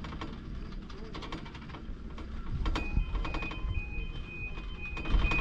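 Poma double chairlift machinery running, with a low rumble and repeated clattering clicks. A high tone that cuts in and out starts about three seconds in.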